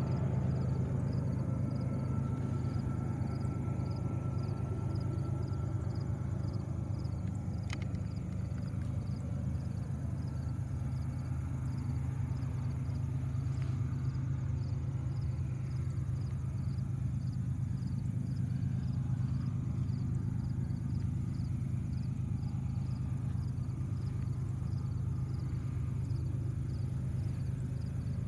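Insects chirping in an even rhythm of about two chirps a second over a constant low rumble. The rumble is the loudest part and stays steady.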